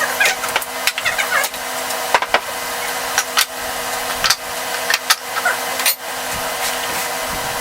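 A power tool's motor running steadily with a constant hum, with irregular clicks and knocks of work on wood throughout.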